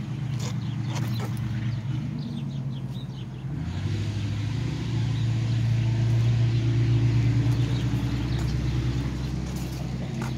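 A car engine running steadily, growing louder from about four seconds in and easing off near the end, as a car passes slowly. A few light clicks or steps in the first few seconds.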